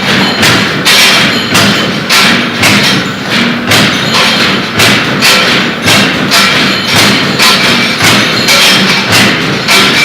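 J23-63T 63-ton mechanical punch press stamping in continuous strokes, a sharp impact about every half second at an even rhythm.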